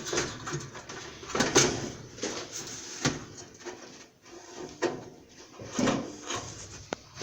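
Irregular clicks, knocks and rustles of hands handling parts inside an LG electric dryer being taken apart, with several sharp clicks at uneven intervals.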